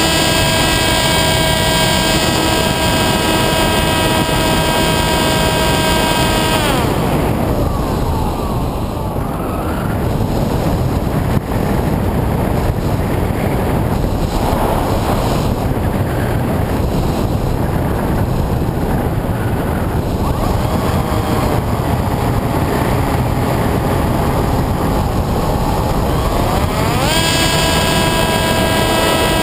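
Electric motor and propeller of an FPV model aircraft, heard through its onboard camera: a steady high whine that winds down about seven seconds in, leaving wind rushing over the microphone, then climbs back to a steady whine near the end.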